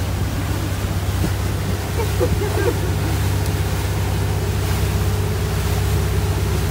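Runabout motorboat's engine running with a steady low hum under way, with wind and water rushing past.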